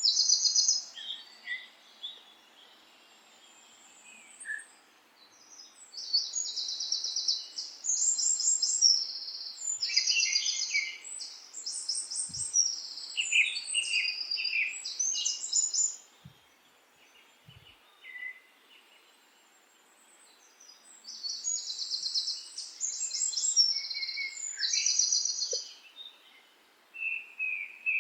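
Songbird singing: phrases of rapid, high-pitched trills a few seconds long, separated by short pauses, over a faint steady background hiss.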